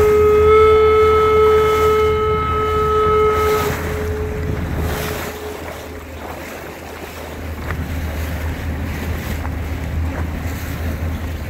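A boat horn sounding one long, steady blast that cuts off about three and a half seconds in, over wind buffeting the microphone and the splash and rumble of a boat moving on choppy water.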